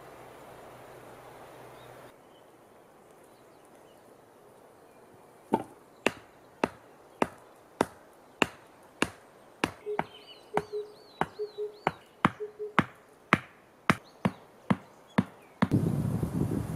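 A hand tool chopping at wood: a steady run of sharp strikes, a little under two a second, lasting about ten seconds. Near the end, loud wind noise on the microphone takes over.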